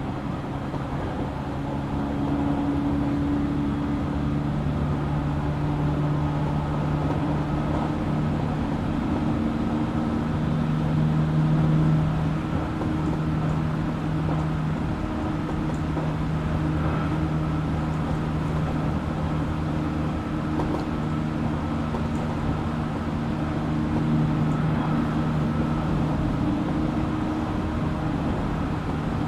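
JR Kyushu 817 series electric train running, heard from inside the car: a steady rumble of wheels on rail with several steady motor tones. This unit is an odd-sounding car whose motor sound resembles a Keio 7000 series.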